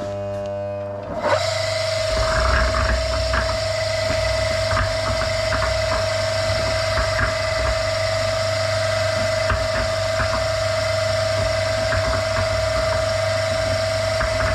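Concrete mixer's 800-watt single-phase electric motor switched on: a brief electrical hum, then about a second in it starts and runs steadily, with a steady whine and light rattling from the belt-driven drum. It now starts without help after its start capacitor was fixed in place.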